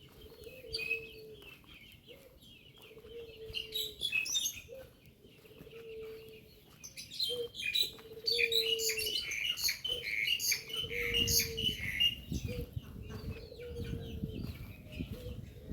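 Birds chirping, with a single mid-pitched call repeating every second or two, each note held briefly and falling slightly, and a burst of quick high chirps in the middle. A low rumble comes in about eleven seconds in.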